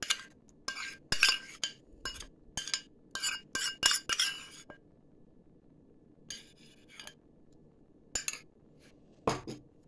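A metal spoon clinking and scraping against a small metal cup as thick yogurt is knocked out into a ceramic mixing bowl: a quick run of sharp clinks over the first few seconds, then a few scattered ones.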